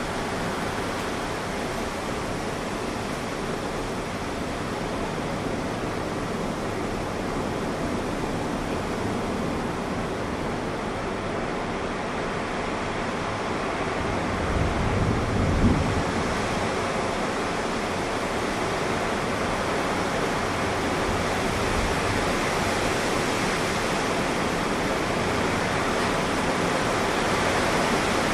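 Wind and rain of a tornadic thunderstorm, a steady rushing noise that slowly grows louder, with a low rumble about fifteen seconds in.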